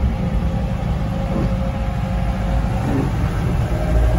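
Engine and road noise heard from inside a moving vehicle's cabin: a steady low rumble with a faint hum, growing a little louder near the end.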